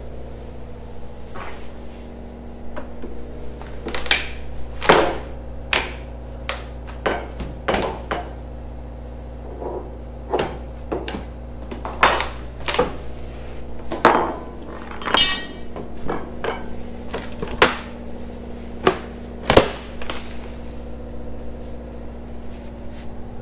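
Irregular metal blows of a hammer and pry bar working at the old wood-and-fiberglass hatch coaming, about twenty strikes with uneven gaps. There is a brief rattling clatter about fifteen seconds in. A steady low machine hum runs underneath.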